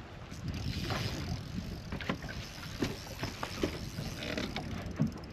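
Wind rumbling on the microphone over small waves slapping a fibreglass bass boat's hull, with scattered light knocks and ticks from the deck and fishing gear.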